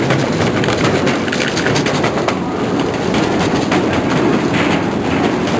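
Suitcase wheels and footsteps of a crowd of passengers clattering down a ferry gangway ramp: a steady, dense run of clicks and rattles.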